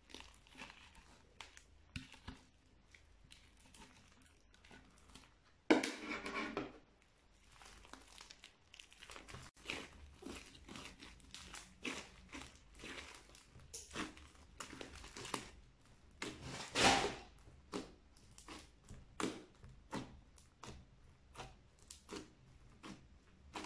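Hands squeezing and kneading crunchy slime mixed with small beads: a dense run of crackles and clicks. There are two louder, longer bursts, about six seconds in and about seventeen seconds in.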